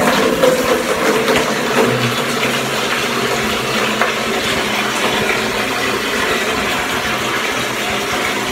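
Water from a bathroom wall tap running hard into a bucket, turned on abruptly at the start and filling steadily.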